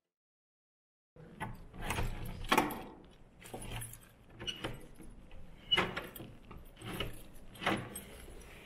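Metal clicks and rattles of a door's lever handle and deadbolt being worked by hand, with keys jangling. They begin about a second in, as a series of sharp clicks at uneven intervals.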